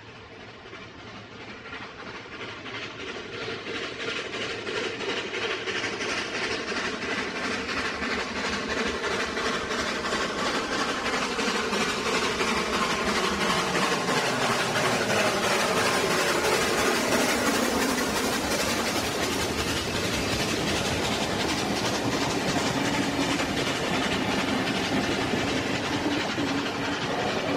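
NSW C32 class steam locomotive 3237 passing at the head of a passenger train, growing steadily louder as it approaches over about fifteen seconds, with the hiss and beat of its steam exhaust. In the last seconds the carriages roll by, their wheels clicking over the rail joints.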